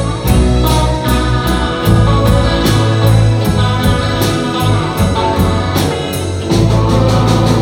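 Live rock band playing, with drums keeping a steady beat under organ-like keyboards and electric guitars. The low end fills out and gets louder about six and a half seconds in.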